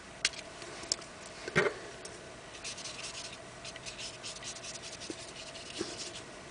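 Faint rubbing and scratching on a paper art-journal page, with a few light taps, as acrylic paint is worked in by hand.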